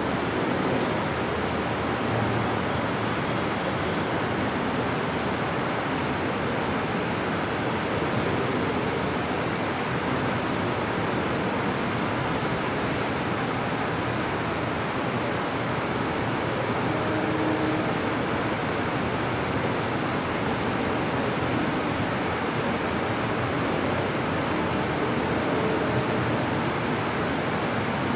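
Steady, even hiss of room noise in a hall, the kind made by a fan or air cooler, with a faint high steady whine above it.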